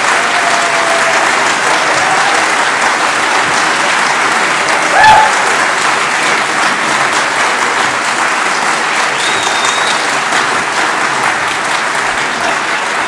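Audience applauding steadily in a hall, with a brief louder cry from the crowd about five seconds in and a short high whistle near ten seconds.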